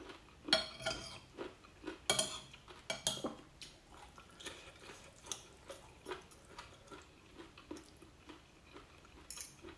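Fork and spoon clinking and scraping against a glazed ceramic plate while noodles are picked up. The clinks are loudest and closest together in the first few seconds, then lighter and more spread out.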